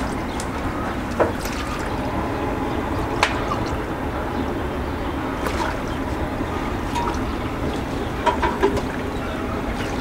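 Liquid being poured from a plastic bowl into a drinking glass, with a few light knocks of the bowl and glass, over a steady background hiss.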